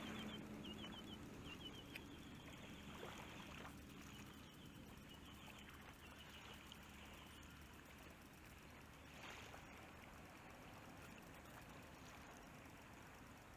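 Faint trickling and lapping of shallow water, with short runs of light high ticks in the first several seconds.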